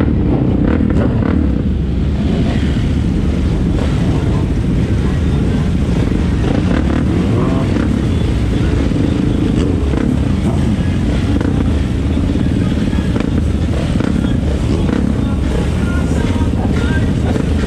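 Engines of a pack of sport motorcycles running at low speed as the group rolls out together, a loud, steady low sound throughout.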